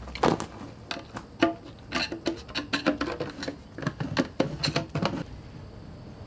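A metal blade prying and clicking around the lid rim of a one-gallon metal can, an irregular run of sharp taps and clinks for about five seconds, then it stops and only a faint steady hiss is left.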